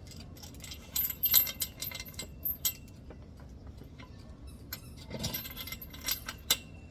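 Metal hammock-stand hardware clinking and jangling as it is handled: irregular sharp clinks, with a cluster about a second in and more near the end.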